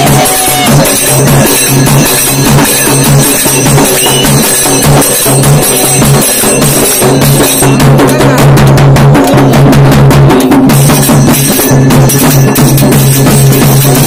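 Loud folk drumming on a rope-tensioned barrel drum (dhol) beaten with a stick in a steady rhythm, breaking into a fast run of strokes about eight seconds in before the beat resumes.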